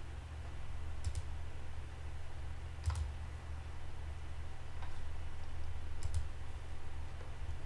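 A few sharp, isolated clicks, about four spread several seconds apart, over a steady low hum.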